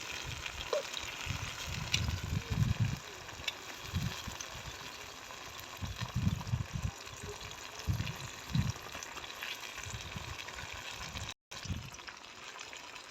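Soft watery sounds and handling noise as boiled, softened tomatoes are peeled in their cooking water, with irregular low thumps and a few small clicks. The sound drops out briefly near the end.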